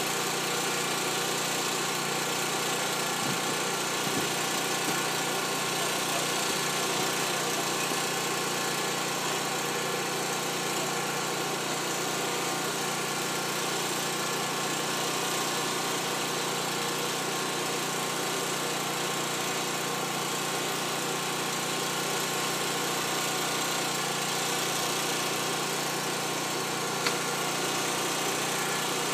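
Steady drone of fire-truck engines running without a break, with one brief click near the end.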